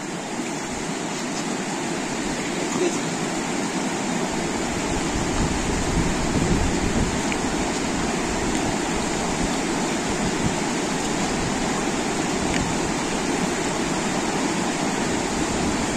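Rocky mountain river rushing over stones: a steady rush of running water.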